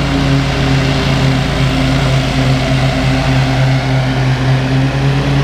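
Stand-on zero-turn mower's engine running steadily at working speed, its blades cutting tall, wet grass.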